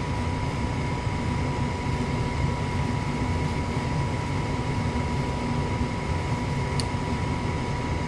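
Gas furnace's draft inducer blower motor running steadily with a thin whine while the furnace goes through its ignition sequence. A faint tick comes about seven seconds in.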